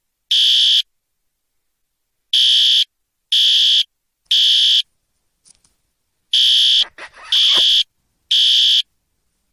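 Fire alarm sounding: loud, high-pitched half-second beeps about a second apart, in groups of three with a pause after each group (the temporal-three evacuation pattern).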